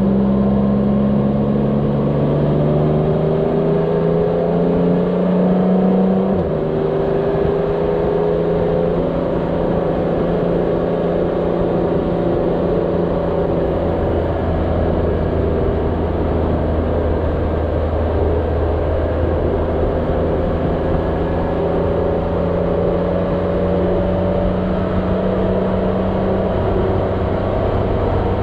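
Motorcycle engine running at road speed, heard from on the bike with wind and road noise. The engine note drops about six seconds in and then holds steady, with slow rises and falls in pitch.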